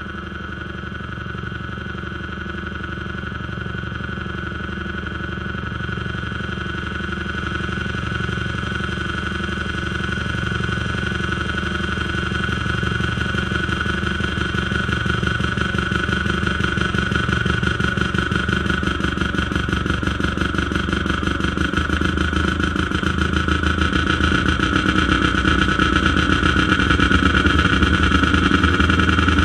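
Live harsh-noise music from circuit-bent junk electronics: a dense, rapidly pulsing drone with a steady high tone and warbling mid tones, building gradually louder.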